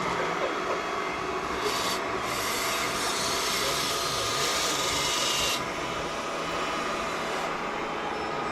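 Radio-control excavator working: a steady high whine from its hydraulic pump, with a rasping, scraping hiss from about two seconds in until about five and a half seconds in.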